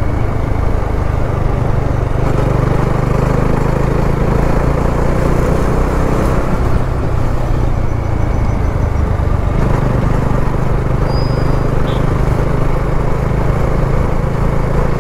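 Motorcycle riding at a steady cruise: the engine runs at an even, unchanging pitch under loud wind and road rush.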